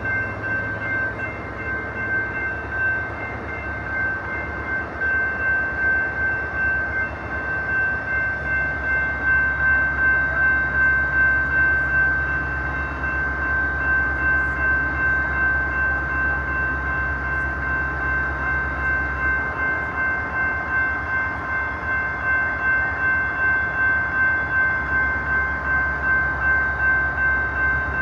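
Siemens SC44 Charger diesel locomotive idling during a station stop: a low engine drone with a slow, even pulse and a steady high-pitched whine over it. The drone drops a little about two-thirds of the way in.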